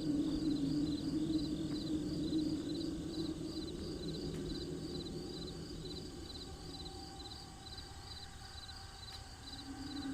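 Crickets chirping in a steady, even rhythm. Under them is a low, steady hum that fades away midway and comes back near the end.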